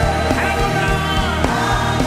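Gospel worship music with a choir singing over a band, a steady bass and beat beneath.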